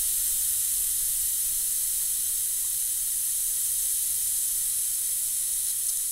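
Air hissing steadily out of a BMX tyre's valve as the tyre is let down.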